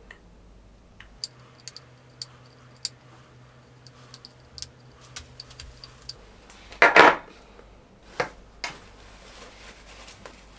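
Valve wrench working the gas valve out of a gas blowback airsoft magazine: a scatter of small metallic clicks and ticks. About seven seconds in there is one short, louder rush of noise, followed by a couple of light knocks.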